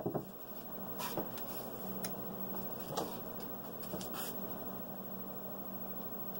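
A sharp click at the start, a couple more just after it, then a few faint scattered clicks about a second apart, as craps dice are handled between throws, over a steady low hum.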